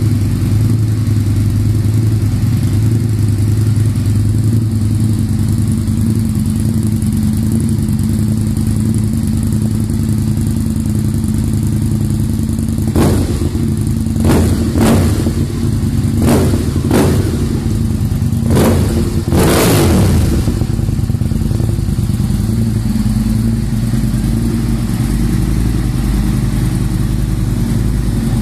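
Sportbike engine idling loudly through aftermarket twin under-tail exhaust silencers, with a run of about seven quick throttle blips about halfway through, the last one a little longer.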